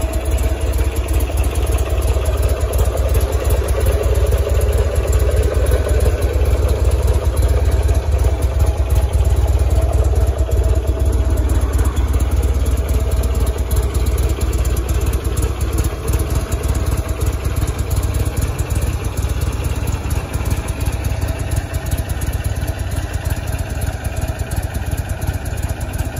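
Buell Firebolt XB12R's 1203 cc air-cooled 45-degree V-twin idling steadily.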